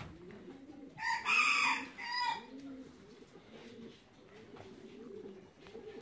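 Pigeons cooing steadily in a hall of show cages, with a rooster crowing loudly about a second in, its crow lasting about a second and a half.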